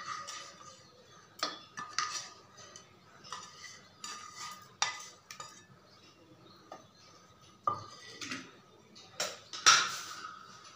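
Wooden spatula knocking and scraping against a frying pan and a steel pressure cooker as fried paneer cubes are pushed off into the cooker: irregular clinks and taps, the loudest near the end.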